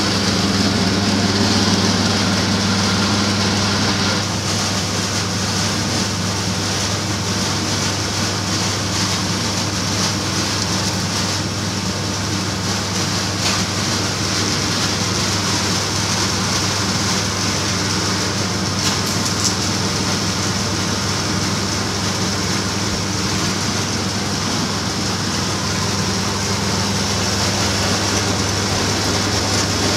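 Rice noodle (kuey teow) machine running steadily, its electric drive giving a constant low hum with a hiss over it.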